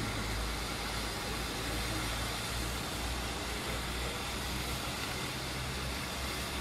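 Steam locomotive approaching slowly at a distance: a steady low rumble with a hiss of steam and no distinct beat.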